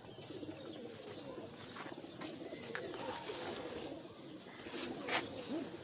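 Many caged domestic pigeons cooing at once, their low coos overlapping without a break. A couple of short clicks come about five seconds in.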